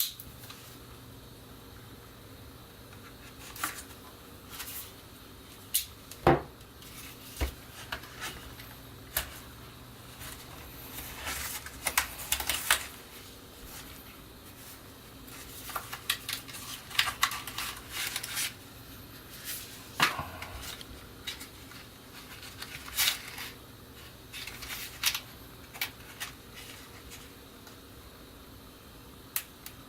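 Hands handling computer parts and their packaging: scattered clicks, taps and short plastic rustles, over a faint steady hum.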